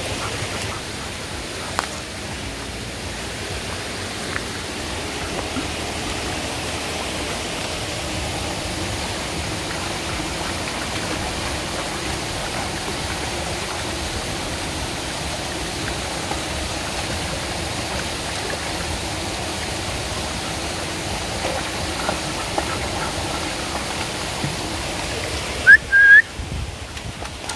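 Shallow rocky woodland stream running steadily over stones. Near the end, a brief, loud, high whistle of two quick notes cuts in over it.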